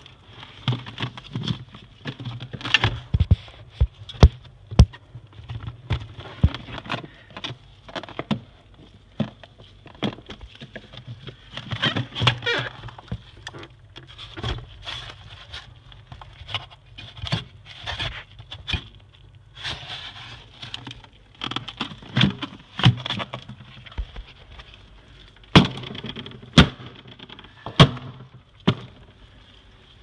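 Samsung refrigerator running with a steady low hum and a thin high whine, with irregular sharp clicks and knocks scattered throughout.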